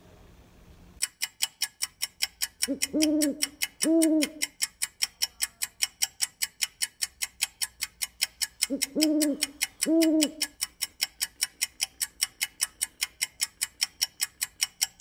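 Sound effect of a clock ticking rapidly and steadily, with an owl hooting in pairs of two hoots about a second apart, once around three seconds in and again around nine seconds in.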